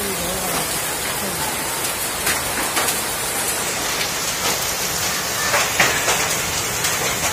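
Heavy rain and hail pouring down onto wet ground in a steady dense hiss, with sharp scattered knocks of hailstones striking, a few louder ones about two and a half seconds in and again near six seconds.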